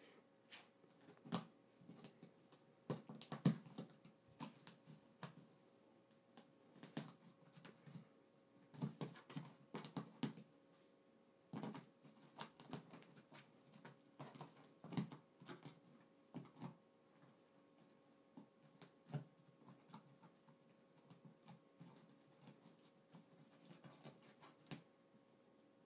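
A nearly quiet room with faint, scattered light taps and rustles, busier in the first half.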